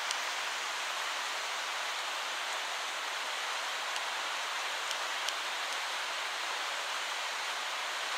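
Steady rushing of a small river in flood, its water running high and fast after a thunderstorm.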